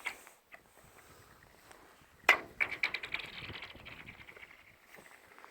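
Lake ice sounding: a sharp crack about two seconds in, followed by a fast ringing, chirping trail that fades away over about two seconds.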